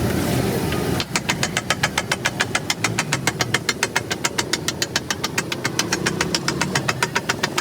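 Metal spatulas striking a flat iron griddle (tawa) as eggs are chopped and mixed. The fast, even clatter of about six strikes a second starts about a second in, over a steady low rumble.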